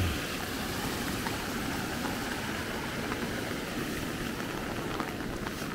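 Steady rushing of a rain-swollen creek running over rocks, with a few faint clicks.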